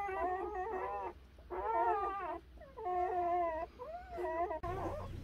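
Newborn Doberman puppies crying: about four high, wavering cries of under a second each, with short gaps between. Near the end the sound changes to shorter, quicker calls over a low hum.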